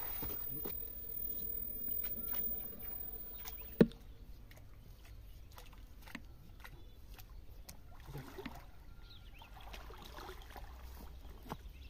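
Water sloshing and dripping as a snail rake on a rope is hauled back through a pond, with one sharp knock about four seconds in.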